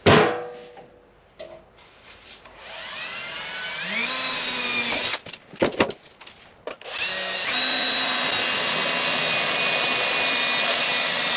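Electric drill boring into a mild-steel gas tank in two runs. The first winds up in pitch and stops after a couple of seconds; the second comes up to speed quickly and runs steadily. A sharp metallic knock with a ringing tail comes right at the start.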